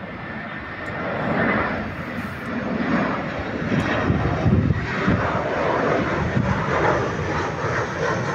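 Jet engines of an easyJet Airbus A320-family airliner on final approach with gear down, a steady rushing jet noise. It grows louder about a second in and stays loud, swelling unevenly.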